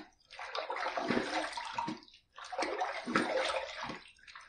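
Water splashing as a face is rinsed with handfuls of water after a shave, in repeated bursts about two seconds apart with short pauses between.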